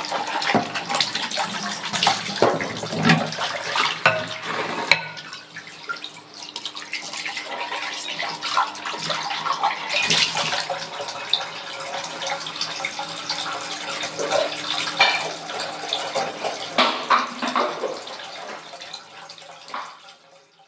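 Dishes being washed by hand in a sink: tap water running and splashing, with plates and utensils clinking and knocking against each other and the basin at irregular moments. It fades out over the last couple of seconds.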